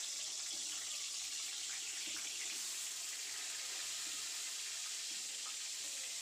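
Aubergine slices coated in salt and turmeric sizzling in hot oil in a wok, a steady high hiss, while more slices are laid into the pan.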